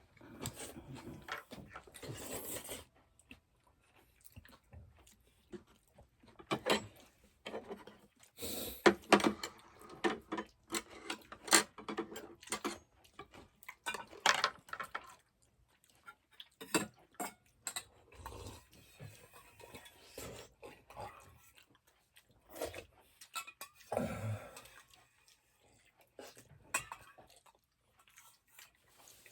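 Mealtime eating sounds: chewing, with utensils clicking and knocking against dishes in short, irregular taps.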